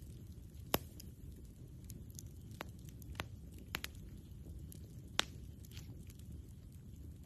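Wood campfire crackling: a handful of sharp pops, the loudest about a second in and again about five seconds in, over a steady low rumble.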